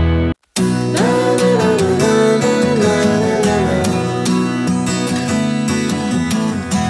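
Background instrumental music led by plucked acoustic guitar. It drops out for a split second about half a second in, then carries on.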